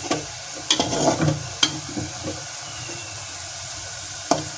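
Browned onions frying in hot oil in a pan, a steady sizzle, with a few sharp clicks of a utensil knocking against the pan as they are stirred.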